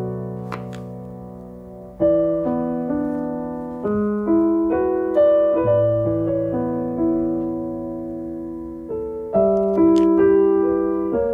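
Slow solo piano music: gentle chords and melody notes, each struck and left to fade.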